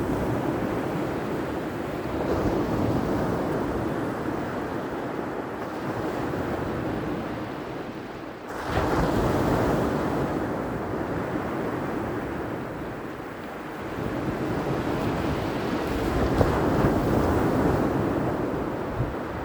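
Ocean surf: waves breaking and washing in a continuous rush that swells and ebbs, with a fresh wave crashing in about eight and a half seconds in and another swell near the end. Some wind buffets the microphone.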